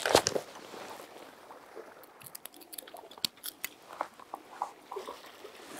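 Fishing tackle being handled while a metal jig is changed on the line: a brief rustle at the start, then a run of light, sharp clicks and ticks from the clip and the jig.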